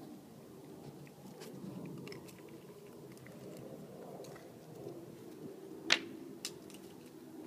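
Chihuahua puppy playing catch on concrete: scattered light clicks and taps as it mouths a toy at the owner's hand, with one sharp, loud click about six seconds in.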